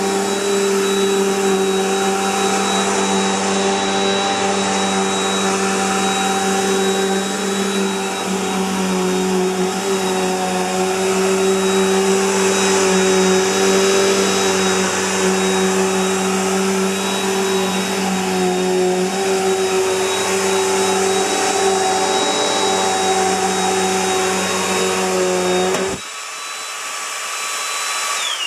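Bissell PowerLifter Bagged Pet upright vacuum cleaner running steadily with a hum and a high whine. About 26 seconds in it is switched off: the hum stops abruptly and the whine falls in pitch as the motor winds down.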